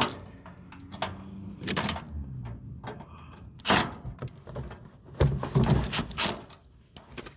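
Scattered knocks and clatter of hands and tools working on a mini-split condenser unit: single strikes about two and four seconds in, then a run of several knocks a little later.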